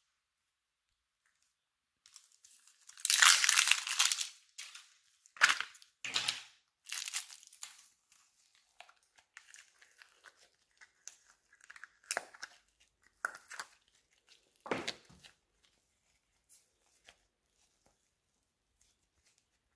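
Soft modelling clay and slime being pulled apart and squeezed by hand: crackly tearing and crinkling sounds in irregular bursts. The loudest burst comes about three seconds in, followed by shorter sharp crackles, and the sounds thin out to faint ones in the last few seconds.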